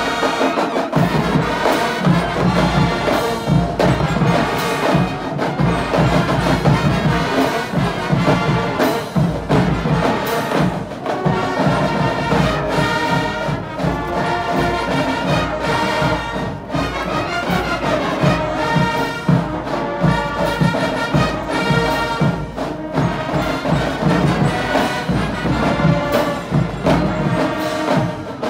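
Student marching band playing: brass instruments carrying a tune over a steady drum and percussion beat.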